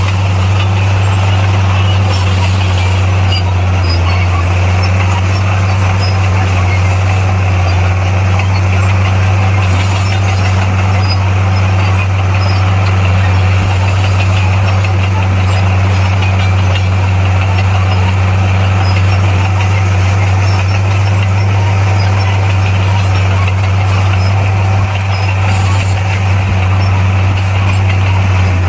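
Heavy diesel engine of a bulldozer running steadily at constant speed, with a deep even hum.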